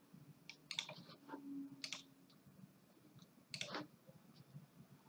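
A few faint, scattered computer mouse clicks, spaced irregularly.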